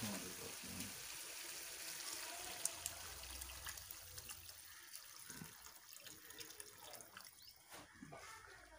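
Reserved chickpea soaking water poured from a pot into a frying pan of fried chickpeas and masala, a steady splashing pour that slowly grows quieter.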